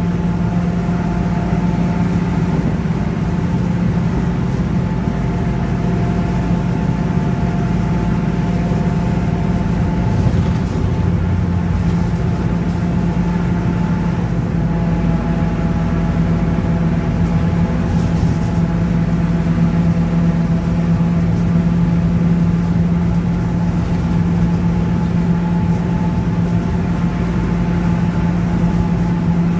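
Mercedes-Benz OF-1721 BlueTec 5 city bus running along, its rear differential droning with a steady tone over the engine and road noise.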